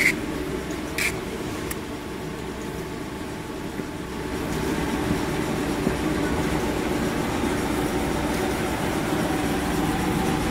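Machinery of a maxi jumbo roll tissue production line running steadily: a dense mechanical hum and rumble with several constant tones. A few sharp clicks sound in the first two seconds.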